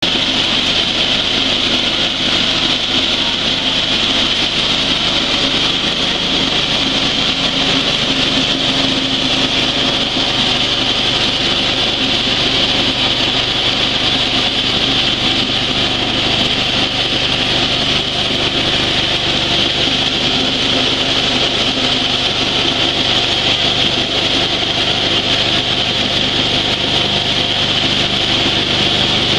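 Coffee huller for dry beans running steadily under load, driven by a small engine, as dried coffee beans are fed through it and stripped of their parchment skins: a continuous mechanical rush over the low drone of the engine.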